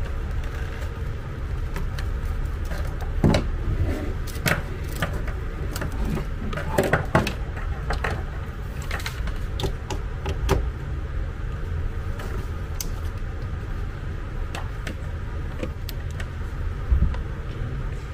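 Scattered clicks and rattles of cables and plastic plugs being handled and pushed into connectors on a plastic housing, over a steady low hum.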